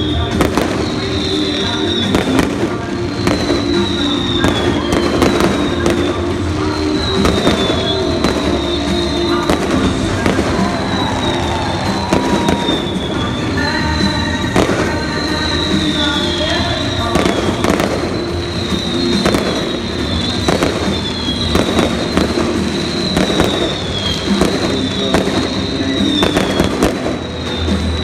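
Fireworks display: many sharp bangs and crackles in quick, irregular succession, over music played in the stadium. A high falling whistle repeats every second or two throughout.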